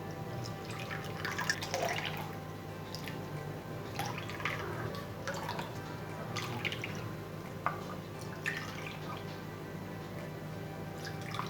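Diluted amla and ginger juice being strained into a bowl: liquid dripping and trickling through the strainer in irregular small splashes.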